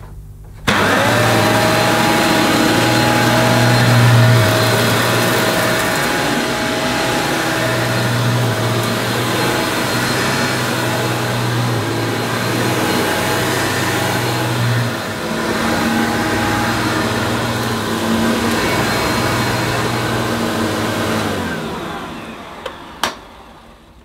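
Hoover Professional Dual Purpose bagged upright vacuum cleaner switched on about a second in. Its motor spins up and runs steadily with a steady whine over a hum while it cleans plush carpet on pile setting 3, pulling hard. It is switched off near the end, its motor runs down over a couple of seconds, and there is a single click after it.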